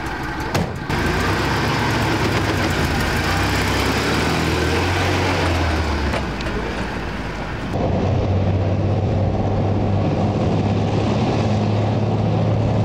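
A light box truck's engine running as the truck pulls away, with a single knock about half a second in. From about eight seconds in, the engine of a tracked infantry fighting vehicle runs loud and steady with a deep low drone.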